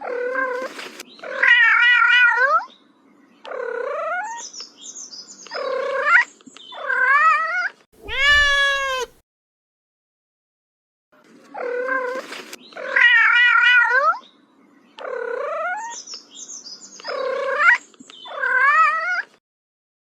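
A cat meowing and yowling in a run of drawn-out, wavering calls, with one smoother rising call near the middle. After a pause of about two seconds, the same run of calls repeats.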